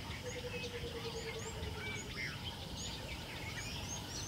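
Bush ambience: many small birds chirping, short rising chirps repeated over a steady background hiss, with a faint long note sliding slightly down in the first two seconds.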